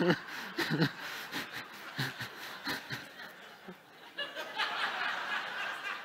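Audience laughing: scattered chuckles at first, then a fuller swell of laughter about four and a half seconds in.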